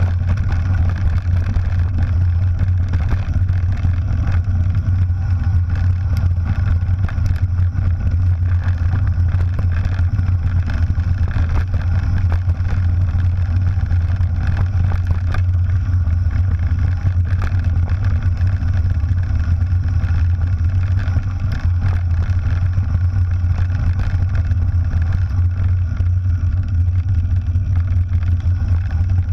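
Steady low rumble of wind buffeting a camera microphone on a mountain bike descending a gravel track, with a faint rattle of tyres and bike over loose stones.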